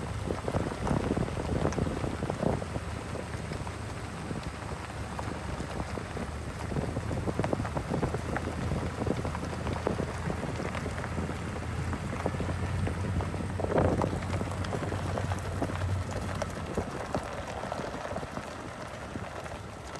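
Off-road vehicle driving along a gravel dirt road: tyres crackling and popping over loose stones under a low steady engine drone, which drops away near the end.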